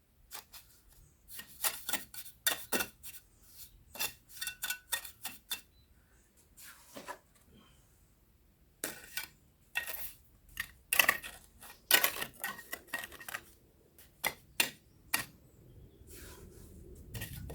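Steel mason's trowel scraping and tapping against mortar and stone while stones are set into a wall: irregular sharp clicks and scrapes, with short pauses. Music fades in near the end.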